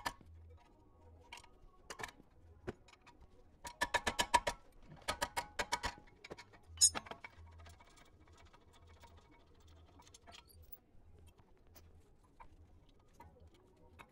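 A ratcheting wrench clicking in quick, even runs as the 22 mm caliper carrier bolts are turned out, two runs about four and five seconds in, followed by a sharp metallic clink about seven seconds in and faint ticks of handling.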